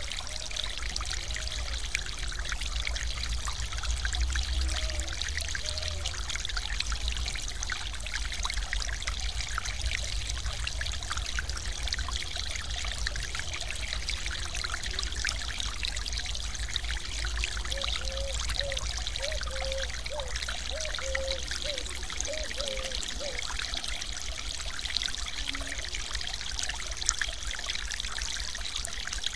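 Stream water spilling over a small concrete weir and splashing into the pool below: a steady, even rush of falling water.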